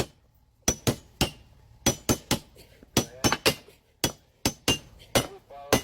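A rapid, uneven run of sharp knocks or strikes, about three a second.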